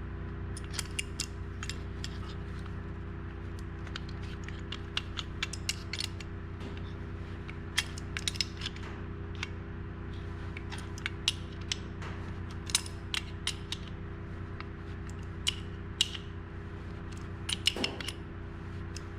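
Ratchet wrench clicking in irregular bursts as it turns the forcing screw of a bearing puller, slowly drawing a chainsaw crankshaft bearing off. A steady low hum runs underneath.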